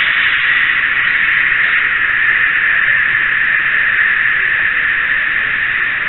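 Steady, loud hiss from a miniature camera riding aboard a moving N-scale model train, with no breaks or knocks.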